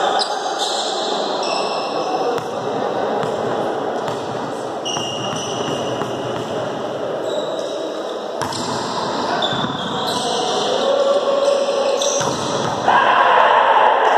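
Volleyball match in play: the ball struck and bouncing, sneakers squeaking on the court and players calling out, all echoing around a large sports hall. The voices grow louder near the end.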